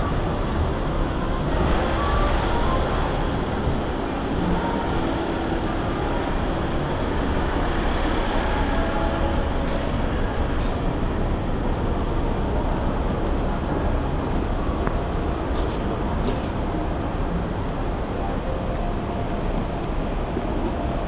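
Steady city street noise: a continuous low rumble of traffic with general urban bustle.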